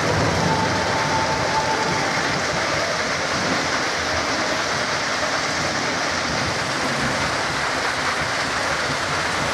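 Spinning roller coaster car running along its steel track, a steady noise of wheels on the rails.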